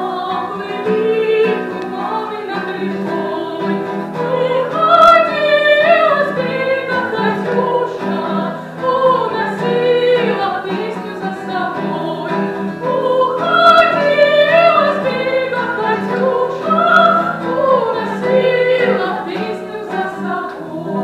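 A woman singing a song, accompanied by a nylon-string classical guitar.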